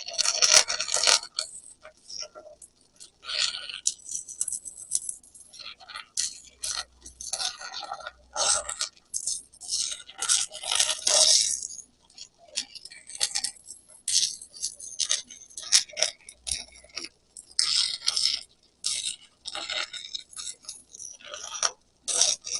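Stick-welding arc crackling and sizzling as a 7018 electrode is burned into the root of a V-groove weld, with a few brief pauses.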